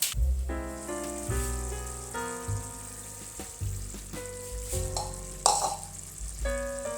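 Background music with a melody and bass line over a steady sizzling hiss of food frying, with a few brief crackles.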